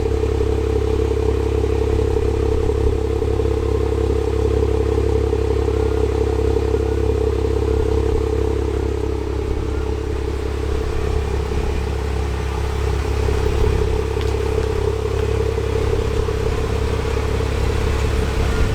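Jeep Wrangler JKU's 3.6-litre V6 running at a steady idle through a MagnaFlow catback exhaust, a constant low rumble.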